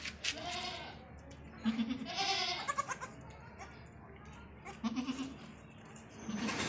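Newborn goat kids and their mother goat bleating: a few separate short calls, some high and some low, with quiet gaps between.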